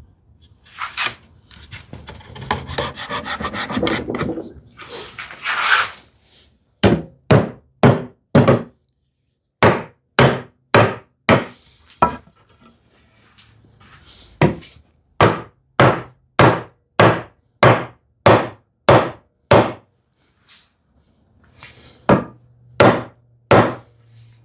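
A hammer tapping a wooden tenoned rail into its mortise: a run of sharp knocks on wood, about two a second, in several bursts with short pauses. Before the knocks come a few seconds of wood scraping and rubbing as the joint is worked.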